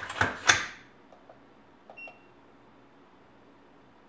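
A quick run of sharp metallic clicks from the AR-15's trigger group and action as it is worked, then a single short electronic beep from the digital trigger pull gauge about two seconds in.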